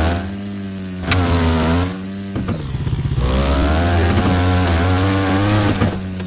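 Honda 400EX ATV's single-cylinder four-stroke engine revving as it is ridden. The pitch climbs and drops back twice under throttle, then rises steadily through the second half.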